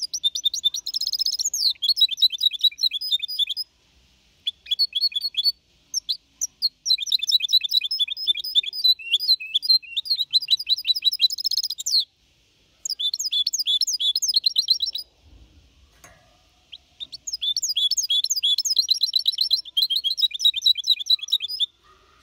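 A young hybrid goldfinch (mixto) singing clean 'Copia Málaga' song: long runs of rapid high twitters and trills, broken by short pauses, with the bird at four and a half months old.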